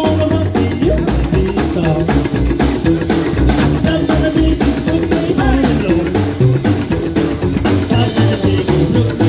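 A rock band playing live, with a drum kit keeping a steady beat under guitar and other instruments.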